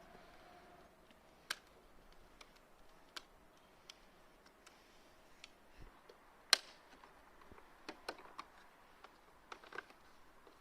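Irregular light clicks and taps of a Citroën C5 door mirror's parts being handled and taken apart, with the loudest click about six and a half seconds in.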